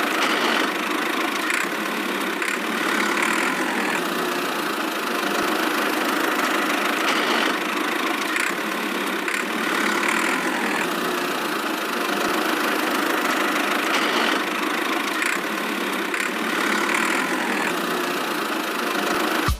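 Small motor of a miniature DIY tractor running steadily after being started.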